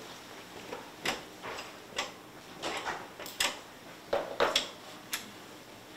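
Irregular light clicks and knocks of metal and wooden parts being handled on a work table as a guide rail is checked with a square and set to 90 degrees, with a louder cluster of clicks about four seconds in.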